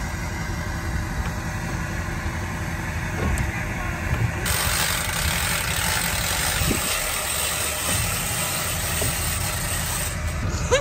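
Pickup truck engine idling with a steady low rumble; a hiss joins about halfway through and stops shortly before the end.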